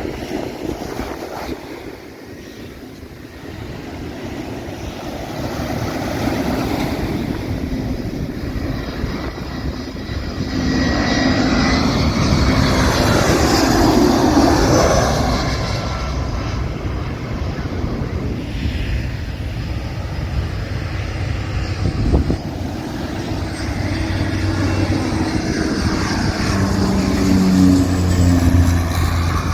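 Airplane engines getting louder over the first half, loudest about halfway through, then holding at a steady drone. Near the end it swells again, with a steady low hum.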